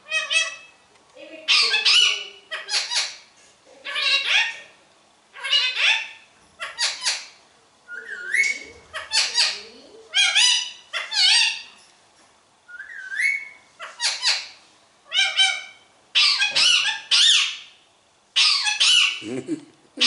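Rose-ringed parakeet calling over and over: short, high-pitched squawking calls about once a second, with a rising whistled note twice along the way.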